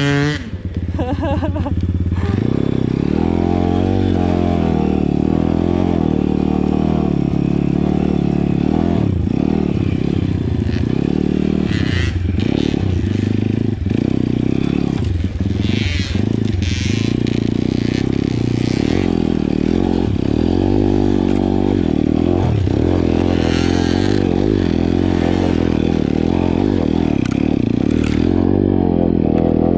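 Pit bike's single-cylinder engine running under throttle, pulling through deep snow, its pitch wavering up and down with the throttle. A few brief scrapes and knocks break in along the way.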